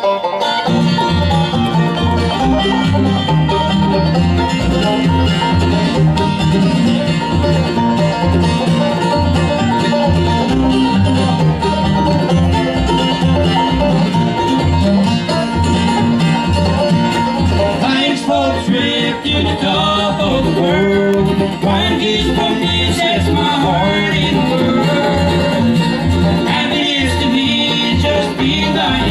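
Bluegrass band playing the instrumental opening of a song on banjo, acoustic guitars, mandolin and upright bass, the bass keeping a steady beat.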